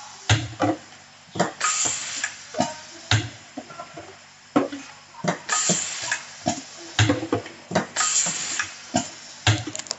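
Bottle labelling machine running: a steady low hum under irregular clacks and knocks, with several short rustling hisses about a second long.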